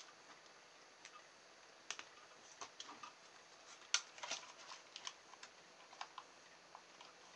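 Faint scattered clicks and taps of small plastic battery connectors being plugged together and a plastic toy RC car chassis being handled, the sharpest click about four seconds in.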